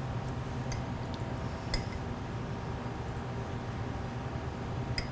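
A few light clinks and taps of kitchen utensils, the sharpest a little under two seconds in, over a steady low hum.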